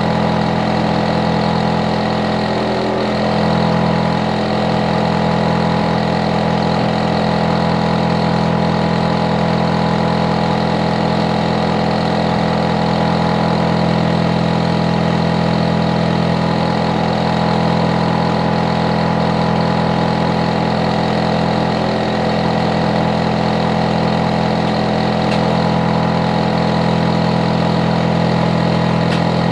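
Hitachi air-conditioner outdoor unit running steadily: a constant hum made of several steady tones, with fan noise over it. It is loud enough to be the subject of a neighbour noise complaint.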